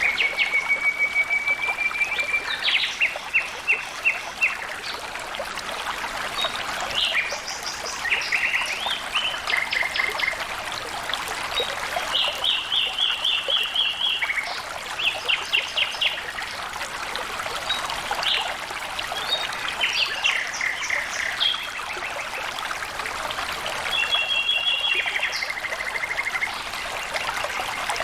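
Flowing water trickling steadily, with birds singing throughout: many short phrases of rapid repeated notes, trills and chirps.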